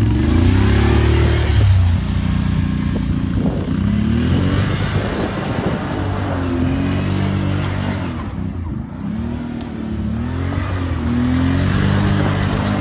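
ATV engine revving up and down over and over as the quad turns across a muddy field. It is loud and steady for the first two seconds, and dips a little about two-thirds of the way through.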